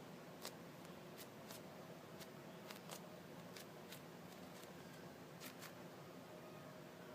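Near silence: room tone with faint, scattered small clicks, about fifteen of them at uneven intervals, of things being handled.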